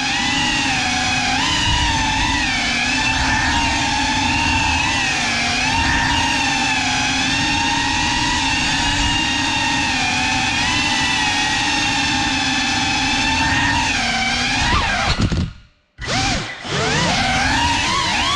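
A GEPRC CineLog35 cinewhoop's four brushless motors and ducted propellers whining in flight, the pitch wavering up and down with throttle. About 15 seconds in the sound drops out abruptly for about a second, then picks up again with a rising whine.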